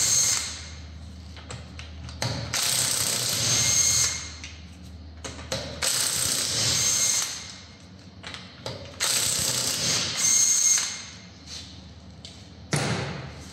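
Cordless impact wrench hammering on the wheel bolts in short runs of a second or two, with pauses between, undoing them to take the front wheel off. Each run carries a high whine.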